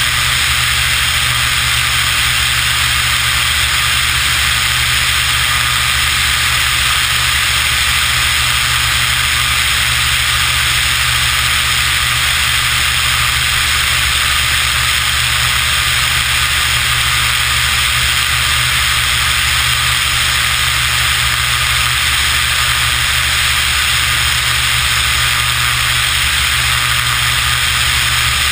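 Steady drone of a Beechcraft BE33 Debonair's piston engine and propeller under a loud, even rush of wind over the wing-mounted camera, in low-level flight at about 170 mph.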